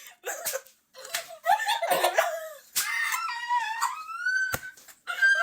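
High-pitched vocal squeals from a person, short cries and then one long squeal that rises in pitch, with a sharp click about four and a half seconds in.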